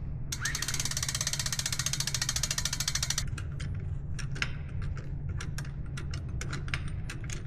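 A fast, even run of mechanical clicks for about three seconds that stops abruptly, followed by scattered single clicks, over a steady low hum.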